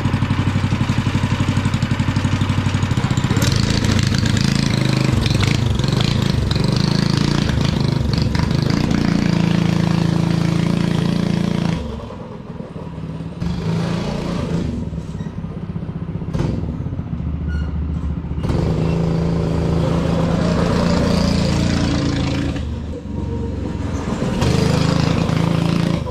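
Predator 212 single-cylinder go-kart engine with a stage one kit, running loud and steady after being started, then fading and swelling as the kart is driven away and back.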